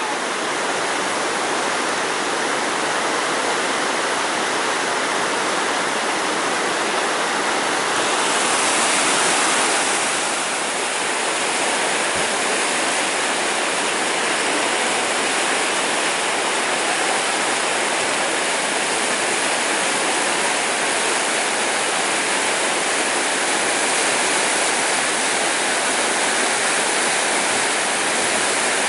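Waterfall rushing: a steady, continuous roar of falling water that swells slightly about eight seconds in before settling back.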